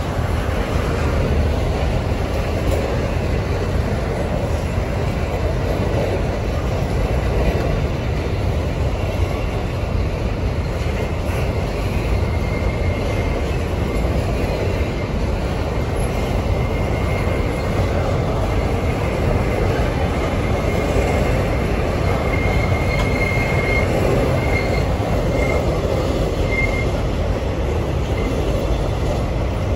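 Freight train of loaded-looking hopper wagons rolling past on a curve: a steady rumble of steel wheels on rail. A thin high wheel squeal comes and goes from about halfway through, strongest near the end, as wheel flanges rub the rail on the curve.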